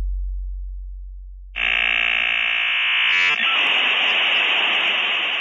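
Electronic end-card sound effect. A very deep boom fades away, then about a second and a half in a loud electronic buzz starts. About a second later the buzz turns into a hiss of static that stops abruptly.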